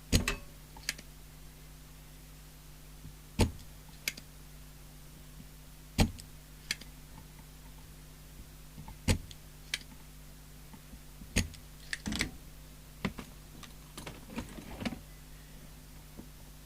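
Irregular sharp clicks and knocks of tools and parts being handled on a CB radio's chassis while the modulation transformer is worked loose, about a dozen in all, over a steady low mains hum.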